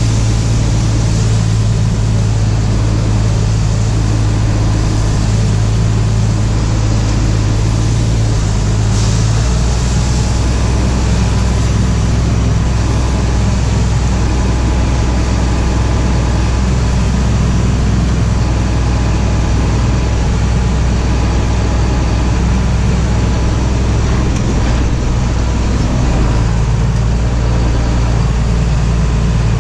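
Case tractor's diesel engine running steadily under load with a low drone. The drone drops in pitch about nine seconds in and rises back a few seconds before the end.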